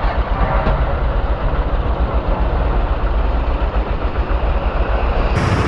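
Motorcycle engine running under heavy, steady wind rumble on an action-camera microphone while riding.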